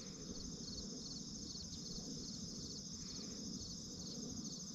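Crickets and other field insects chirping in a steady, fast-pulsing high-pitched chorus, over a low steady rumble.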